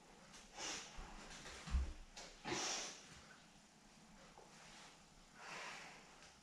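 Sharp forceful exhalations of a taekwondo practitioner, three short hissing breaths timed with her movements, and dull thumps of bare feet on foam mats, the loudest thump a little under two seconds in.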